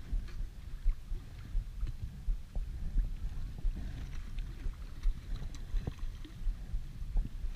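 Bay water lapping and sloshing around a wading angler, with uneven low wind buffeting on the microphone and a few faint clicks.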